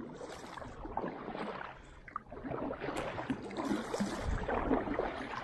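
Kayak paddle strokes through calm water, with water splashing and rushing along the hull, easing off briefly about two seconds in.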